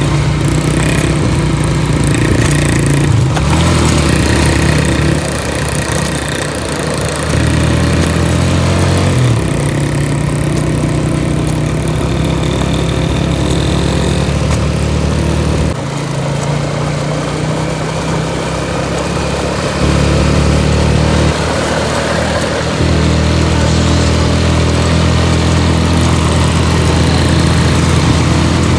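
Motorcycle engine running during a ride, its note stepping up and down several times as the throttle changes, with wind and road noise over it.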